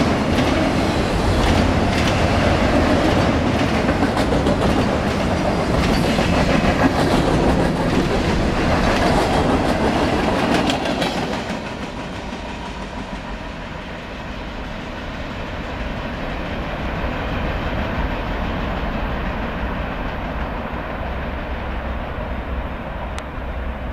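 Freight train cars, tall autorack cars among them, rolling past at close range: a steady rumble with rapid wheel clatter over the rail joints. About halfway through it turns quieter and duller, a low rumble as the train is heard moving away.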